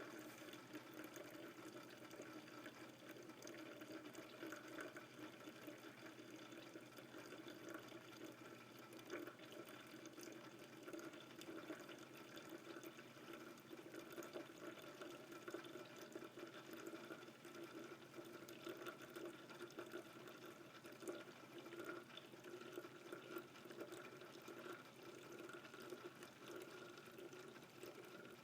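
Commercial coffee brewer brewing a pot: hot water trickling and dripping steadily into the pot, faint and even throughout.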